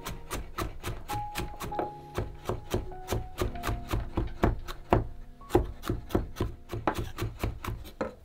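Chef's knife rapidly chopping garlic cloves on a wooden cutting board, an even run of about four to five chops a second that stops at the very end. Soft background music with held notes plays underneath.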